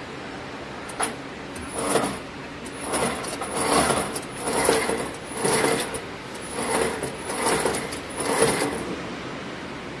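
A sharp click about a second in, then a run of about eight short metallic rattles, roughly one a second, from the bobbin carriers and deck of a wire harness braiding machine.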